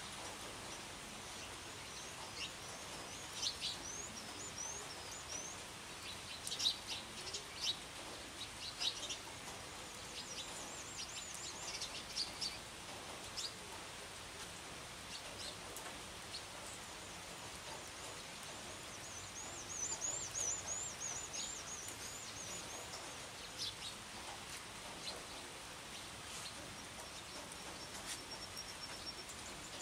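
Steady hiss of gentle rain with birds chirping over it: quick, high, repeated notes in clusters, busiest in the first half and again about two-thirds through.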